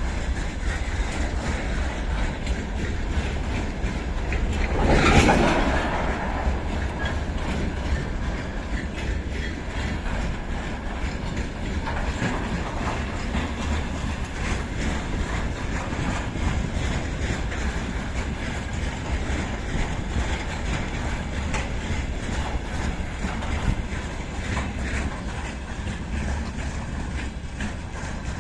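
Freight train rolling slowly past, its wheels clicking over the rail joints over a steady rumble. A brief louder rush of noise comes about five seconds in.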